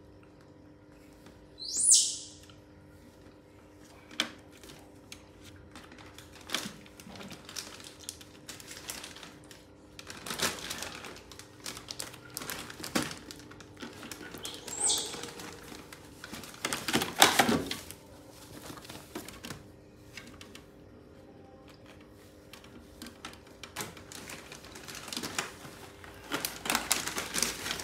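Crinkling, clicking plastic: a clamshell fruit box and a plastic bag being handled, with knocks on a wooden tabletop. A baby monkey gives a short high squeak that rises in pitch about two seconds in, and another about halfway through.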